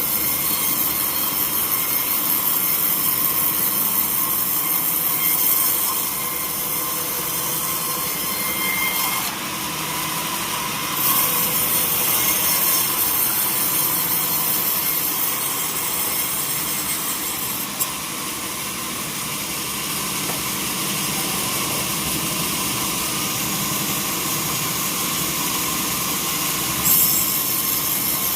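Powered sawmill saw cutting through a teak log, a steady high whining hiss of blade in wood, with its level shifting a few times and a short louder moment near the end.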